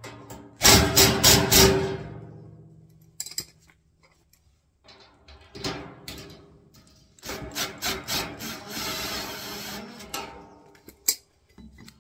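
Bolts on a steel wheelbarrow's tray and frame being driven with a cordless drill, with loud bursts of rattling and scraping metal: a cluster of strokes about a second in and a longer rasping run in the second half.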